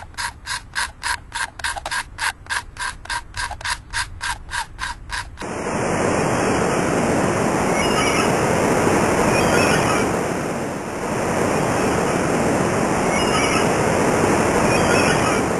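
Blade scraping leftover thread and glue off a fishing rod in quick, even strokes, about four a second. About five seconds in the scraping cuts off abruptly and a steady, loud hiss takes over.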